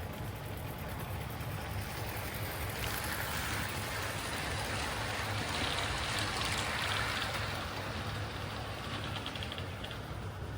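Hornby live steam model locomotive running on its track: a steady hiss of steam over the low rumble of wheels on rails, the hiss growing louder for a few seconds in the middle.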